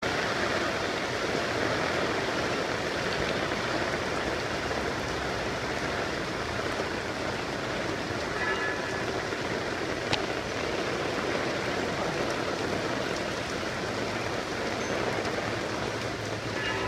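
Heavy downpour of a flash storm: a steady hiss of rain falling on paving, puddles and leaves. There is one sharp click about ten seconds in.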